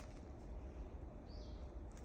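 A single short bird call, one curved note about a second and a half in, over a steady low rumble.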